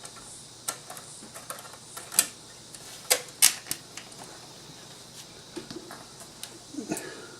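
Sharp clicks and taps of CPU cooler mounting hardware, the metal back plate and screws, being handled and fitted. The loudest clicks come about two seconds and three to three and a half seconds in, with smaller taps near the end.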